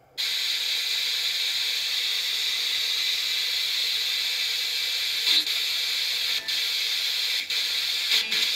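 Arduino spirit box with a TEA5767 FM radio module playing steady FM static hiss through a small speaker as it sweeps the radio band. The hiss cuts in suddenly at the start and is broken by short blips about once a second in the second half, each one the tuner jumping to the next channel.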